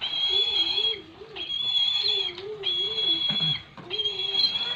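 Brahminy kite calling four times in a row. Each call is a drawn-out, high, thin note about a second long, with a lower wavering tone beneath it.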